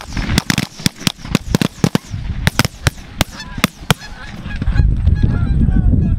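Rapid volley of many shotgun blasts, several a second and overlapping, from a group of goose hunters firing on a flock of Canada geese, with the geese honking between shots. The shooting stops about four seconds in, leaving a low rumble and a few faint honks.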